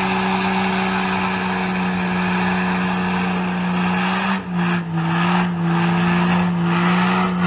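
Engine held at high revs at a steady pitch under a loud rushing hiss, the pitch dropping slightly about four and a half seconds in.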